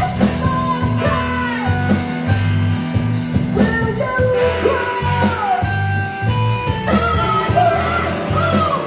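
Rock music: a singer's voice sliding between notes over bass, guitar and a steady drum beat with regular cymbal strokes.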